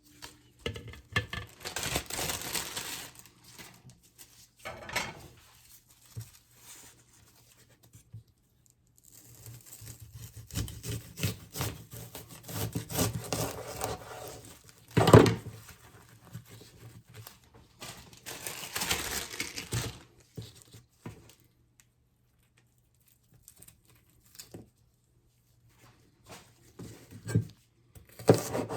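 Kitchen food-prep handling noise: intermittent rustling, crinkling and tearing in several bursts, with one sharp knock about fifteen seconds in.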